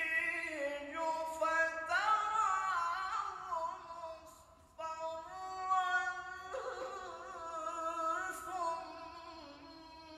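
A male voice in solo melodic Quran recitation (tilawah) into a microphone, with long, ornamented phrases held on a high pitch. There is a short pause for breath about four and a half seconds in before the next phrase.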